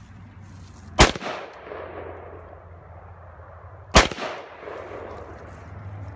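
An AR-15 rifle fired twice, single shots about three seconds apart, each sharp crack trailing off in a short echo.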